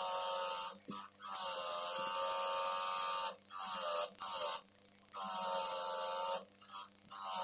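Bench grinder wire wheel buzzing as a rusty pipe wrench part is held against it to strip the rust. The sound breaks off briefly several times as the piece is shifted on the wheel.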